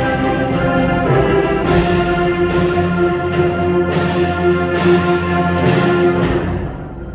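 School concert band playing: sustained brass and wind chords with a percussion strike about once a second, dropping to a softer passage near the end.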